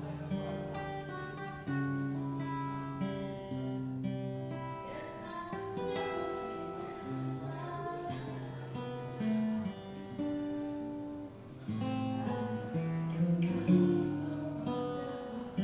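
Gibson J-45 acoustic guitar played solo: a moving bass line under a picked melody, each note ringing on.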